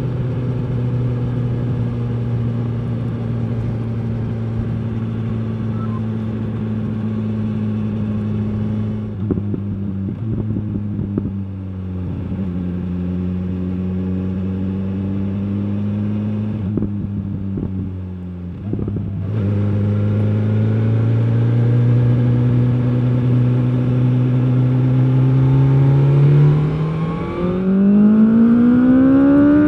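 A 2021 BMW S 1000 R's inline-four engine through its stock exhaust, heard from the rider's position while riding. It holds steady revs, and the revs dip twice as the throttle is eased. It then pulls with the revs climbing steadily, and they rise steeply near the end.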